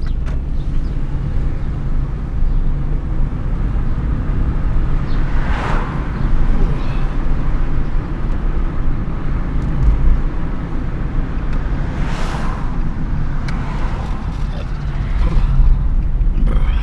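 Road and engine rumble heard from inside a moving vehicle's cabin. Two brief louder swells of noise come through, about six and twelve seconds in.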